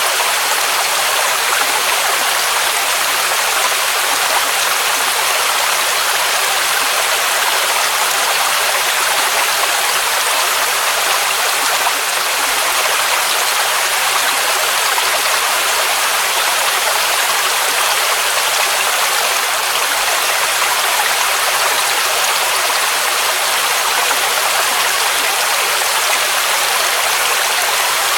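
Waterfall rushing in a steady, unbroken roar: an even hiss with little deep rumble.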